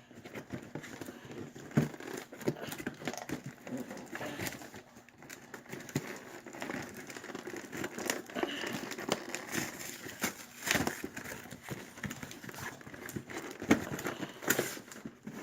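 Plastic and cardboard toy packaging crinkling and rustling, with irregular clicks and crackles, as a remote-control car is pulled out of its box.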